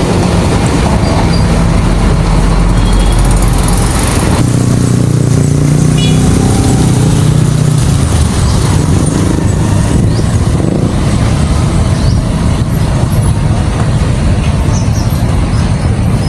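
Steady, loud rumble of road vehicles.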